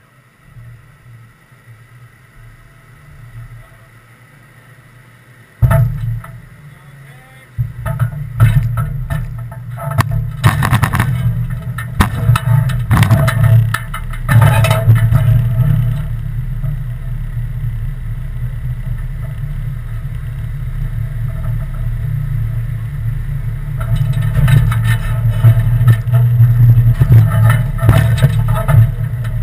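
A vehicle push start: a loud bump about five and a half seconds in, then an engine running under load, rising and falling, with clunks and rattles.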